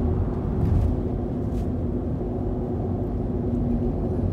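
Steady engine and road rumble heard from inside a car's cabin while it cruises along an expressway, with a constant low hum.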